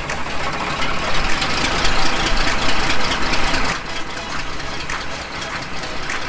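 Case tractor's diesel engine running just after a cold start on a jump from a pickup. It runs louder for the first few seconds, then drops back to a lower, steady run about two-thirds of the way through.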